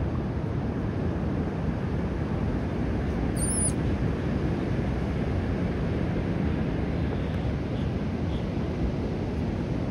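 Steady low rumbling outdoor background noise, with one short, high, wavering chirp about three and a half seconds in.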